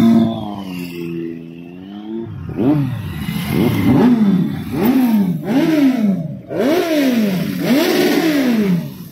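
Motorcycle engine revved repeatedly in quick throttle blips, the pitch shooting up and falling back about one and a half times a second, after a steady held engine note that sags during the first two seconds.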